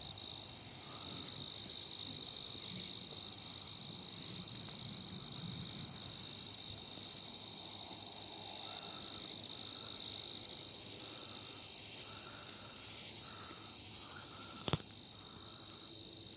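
Night chorus of crickets and other insects: a steady high-pitched trilling, joined in the second half by a short call repeated about twice a second. A single sharp click sounds near the end.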